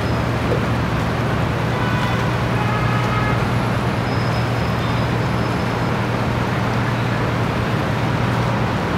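Motor cruiser's inboard engine running steadily under way, a constant low drone under a rush of water and wind noise.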